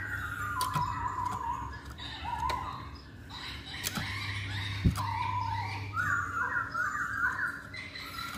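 Black-throated laughingthrush (poksay Hongkong) singing in its cage: a string of loud, warbled and whistled phrases, with a run of quickly repeated notes in the second half. A few sharp knocks come about four and five seconds in.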